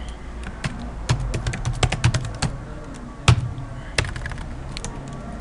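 Typing on a computer keyboard: a run of irregular key clicks, with two louder key strikes about three and four seconds in.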